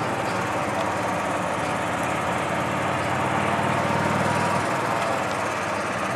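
A vehicle engine running steadily at low speed, a low hum that fades about four and a half seconds in.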